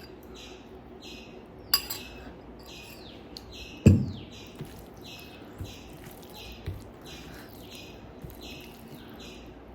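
A bird calling over and over, about one and a half short, high, falling chirps a second. There is a sharp clink about two seconds in and a dull thump about four seconds in.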